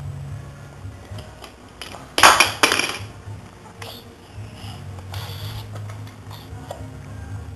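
Small hard plastic toy pieces clattering in a clear plastic container, one loud rattle of many quick strikes lasting under a second, about two seconds in, followed by a few fainter clicks.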